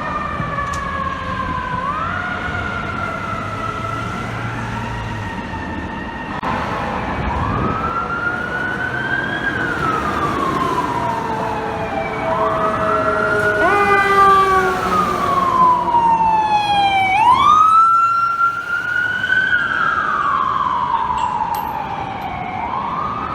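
Fire truck siren winding up and dying away over and over: each time the pitch jumps up quickly, then sinks slowly over several seconds, about five times. A second siren overlaps briefly near the middle.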